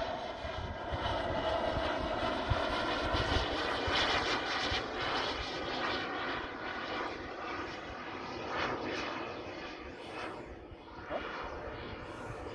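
Turbine engine of a 2.5 m radio-controlled F-16 model jet, a steady jet noise as the model flies overhead, slowly fading as it moves away.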